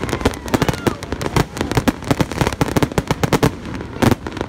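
Fireworks going off in rapid volleys of sharp bangs, many a second, with one louder boom about four seconds in and a faint short whistle about a second in.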